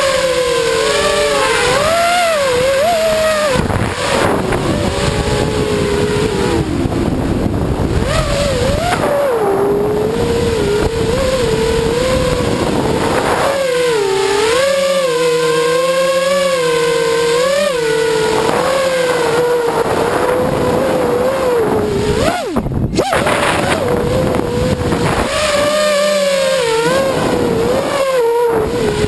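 FPV quadcopter drone's motors and propellers whining, the pitch rising and falling constantly with the throttle, with a sharp dip and rise about three-quarters of the way through.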